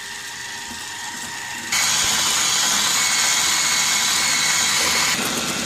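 Electric hand mixer whisking eggs and sugar in a bowl, its motor and beaters running steadily. It suddenly gets louder about two seconds in and eases slightly near the end.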